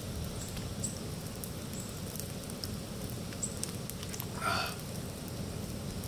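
A man gulping down a 16-ounce can of beer in one long drink, then lowering it with a short breath out about four and a half seconds in. A steady low background hum and faint high ticks run underneath.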